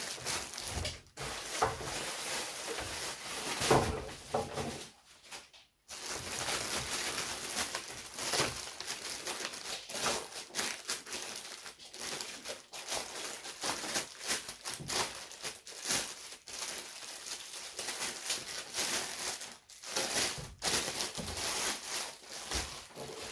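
Packaging rustling and crinkling, with many small clicks and scrapes, as a small airbrush compressor is unpacked from its box. There is a brief lull about five seconds in.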